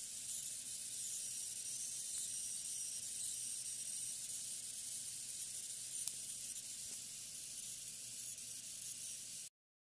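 High-pitched whine and hiss of coil whine from the VRM chokes of a JINGSHA X79-P3 motherboard, the squeal that changing CPU load sets off. It runs steadily with a faint low hum beneath and stops abruptly near the end.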